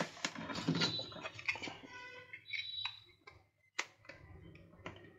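Handling noise from a laptop power adapter being reassembled by hand: its plastic case halves and cable are picked up and fitted together, giving a sharp click at the very start, then scattered small plastic clicks and rustling.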